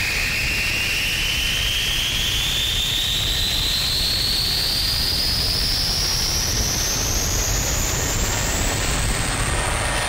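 Industrial noise music: a dense, steady low noise drone under a high whistling tone that climbs slowly and evenly in pitch, like a jet sweep.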